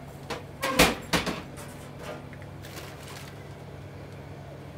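A pizza going into the oven on a peel: three sharp metal knocks within about a second, the middle one loudest, then a steady low hum of kitchen equipment.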